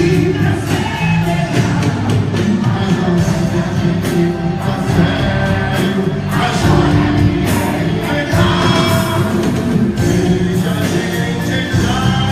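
Quadrilha junina music with a singer over a steady beat, played loud for the group's dance.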